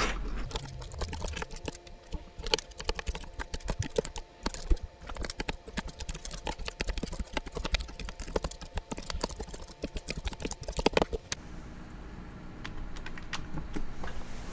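Plastic keycaps being pressed one after another onto the sliders of a Cooler Master Novatouch TKL Topre-type keyboard, a quick irregular run of small clicks and snaps that thins out about 11 seconds in.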